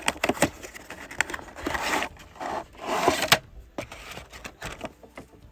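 Blister packaging of a Matchbox 5-pack being cut open: sharp clicks, then two longer scraping strokes in the middle, then lighter clicks and rustles as the pack is handled.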